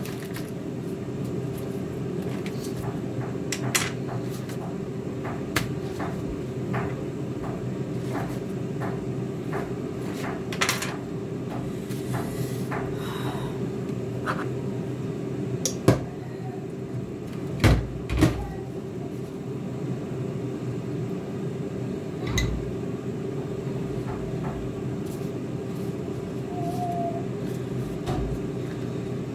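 Steady hum of a running kitchen appliance, with scattered clicks and knocks of dishes and utensils being handled on the counter; the loudest knocks come a little past halfway.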